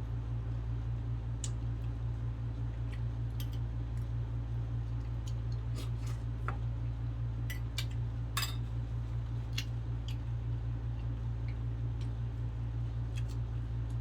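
Scattered light clicks and taps of someone eating, dish and utensil contact and small mouth sounds, over a steady low hum.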